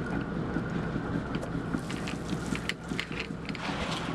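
Fishing boat's engine running steadily with a low hum, with a scatter of light clicks and knocks about halfway through and a short hiss near the end.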